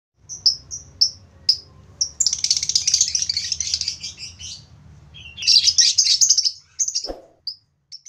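Pet budgerigars chirping and chattering: a few short single chirps, then a rapid warbling chatter for about two seconds, a brief lull, and a second burst of chatter.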